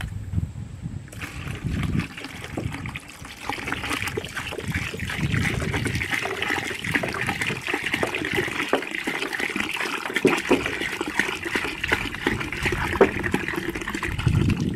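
Water pouring from a plastic gallon jug into a bucket of mashed muscadines, starting about a second in and running steadily.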